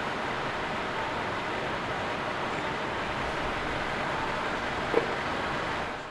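Steady street ambience, an even hiss of traffic noise, with one short click about five seconds in.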